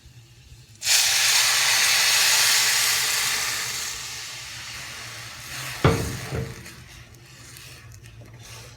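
Ground tomato purée going into hot oil with frying garlic: a sudden loud sizzle about a second in that slowly dies down. A sharp knock about six seconds in.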